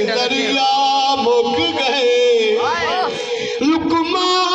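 A man singing a Punjabi ghazal into a microphone, drawing out long, wavering held notes without words. About three seconds in he sings a quick rising-and-falling ornament, then holds a new note to the end.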